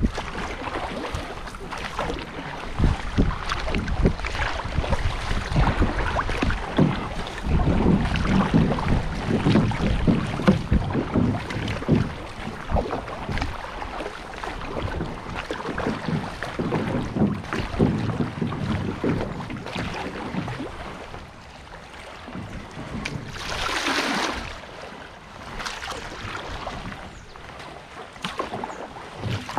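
River water rushing and splashing around a paddled boat on a river descent, with wind buffeting the microphone. A brighter surge of splashing comes about 24 seconds in.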